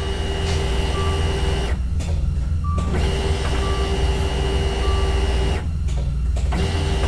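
Dodge Dart's electric fuel pump priming at key-on with a steady whine, switched on and off by the ignition. It stops about two seconds in, starts again a second later, stops near six seconds and starts once more near the end, all over a constant low rumble.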